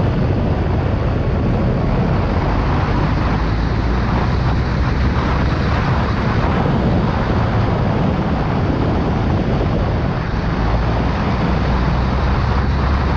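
Motorcycle being ridden at steady speed, heard from an onboard camera: the engine runs steadily under the rush of wind on the microphone.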